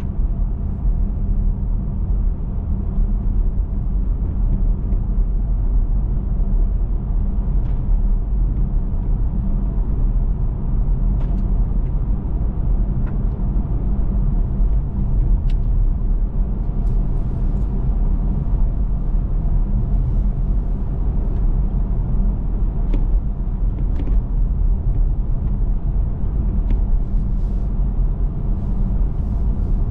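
Steady low rumble of a car driving, with a few faint, scattered clicks.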